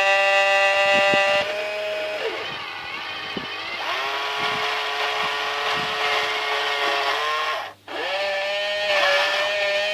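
Motors and gearing of a 1:12 scale radio-controlled cable excavator whining as it works, the pitch stepping down and up several times as functions change, with a short break about eight seconds in.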